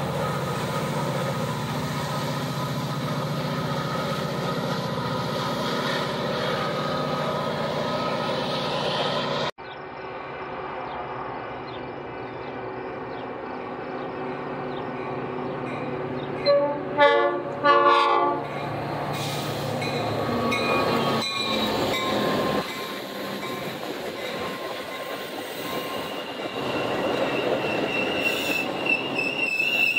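Metra EMD F40PH diesel locomotive running with a steady low drone as it pulls its commuter train away, cutting off abruptly about a third of the way in. Then an approaching Metra train sounds its horn in two blasts about a second apart, and its bi-level gallery coaches roll past, the wheels starting to squeal near the end.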